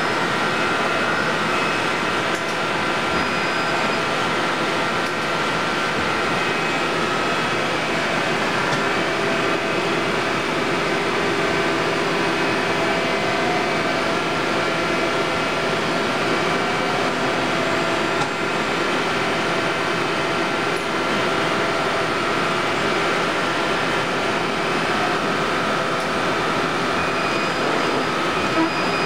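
Steady whirring hum of machinery running under power, with several fixed whining tones over it and no change in pitch or level throughout.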